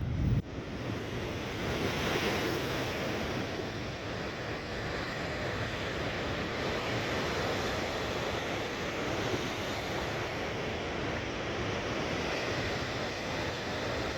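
Rough, storm-driven sea surf breaking and washing continuously, swelling about two seconds in, with wind buffeting the microphone in a loud low blast right at the start.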